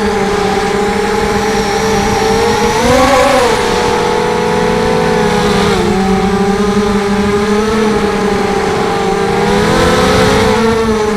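ZMR250 quadcopter's brushless motors and Gemfan 5045 fiberglass propellers whining steadily in flight. The pitch rises briefly about three seconds in and again near the end, following the throttle.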